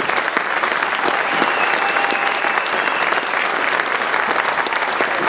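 Crowd applauding steadily, a dense, unbroken clatter of many hands clapping.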